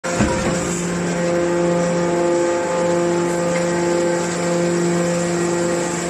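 Hydraulic metal baler's motor and pump running with a steady hum, with a brief clatter near the start.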